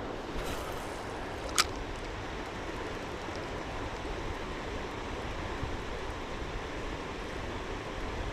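Steady rush of river water flowing over stones, with a single sharp click about a second and a half in.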